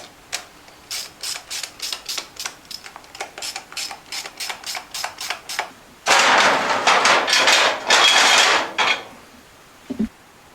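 A run of quick mechanical clicks, about four a second, then a pneumatic brake bleeder hissing loudly with compressed air in two bursts as it draws fluid out through the brake bleeder valve. A single low thump near the end.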